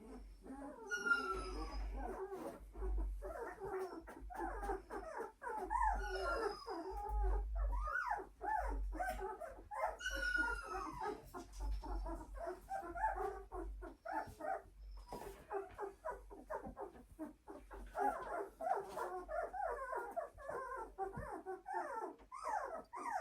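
Two-week-old German shorthaired pointer × English pointer puppies whimpering and squealing in a continuous stream of short, high, wavering cries.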